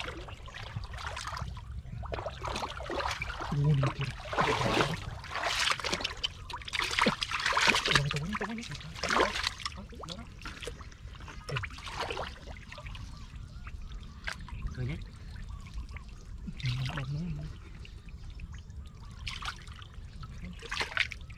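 Water splashing and pouring in irregular bursts, heaviest in the first half, over a steady low rumble, with a few short voice sounds.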